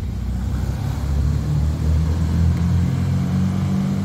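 A motor vehicle's engine running steadily, a low hum.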